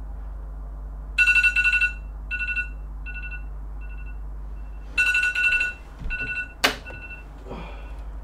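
Electronic alarm ringing in rapid pulsed beeps at two pitches. It comes in a loud burst, fades over a few repeats, then returns loudly. A sharp knock comes about two-thirds of the way through, and the ringing stops just after it.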